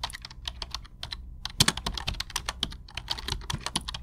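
Computer keyboard typing: quick, irregular key clicks, many a second, over a low steady hum.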